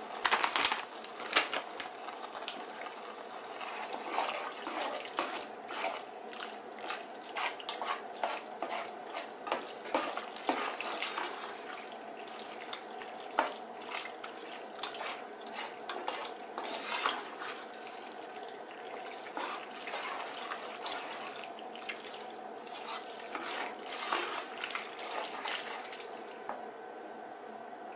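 A plastic slotted spoon stirring shell pasta and shredded cheese in a metal pot, with wet stirring noises and irregular scrapes and knocks against the pot. The sharpest knocks come in the first second or two, over a steady hum.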